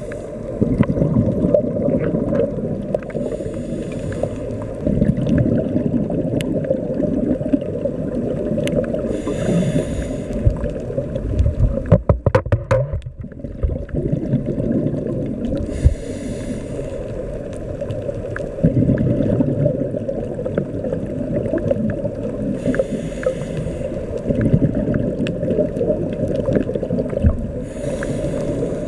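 Muffled underwater sound from a camera in a waterproof housing: a steady low rumble of water against the housing, with a scuba regulator's breath cycle giving an airy hiss every six or seven seconds. A quick run of clicks comes about twelve seconds in.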